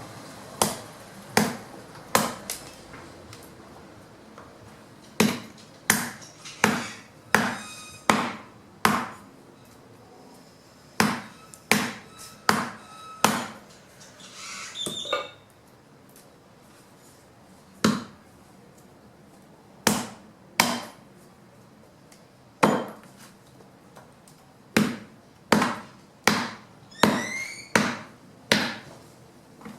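Fallen branches being chopped by hand into wood chips: a blade striking wood in sharp chops, roughly two dozen strikes in irregular runs with short pauses between.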